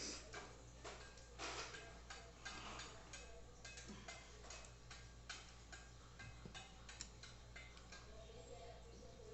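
Faint, irregular light clicks and taps of kitchen utensils against a dish, over a steady low hum.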